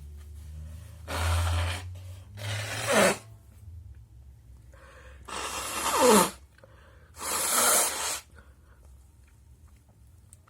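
A person sneezing hard twice, about three seconds apart; each sneeze ends in a falling voiced cry. Loud breathy gusts come just before the first sneeze and just after the second.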